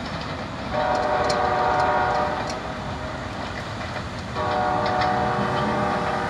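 Diesel locomotive air horn on a GP38-2-led freight train sounding two long blasts, each a steady chord of several notes, the second starting about a second after the first ends and still sounding at the end, over the low rumble of the train rolling on the rails.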